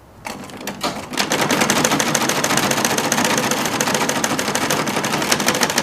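Old domestic Butterfly sewing machine starting up and stitching a straight seam: a few slow stitches at first, then from about a second in a fast, steady run of needle clicks.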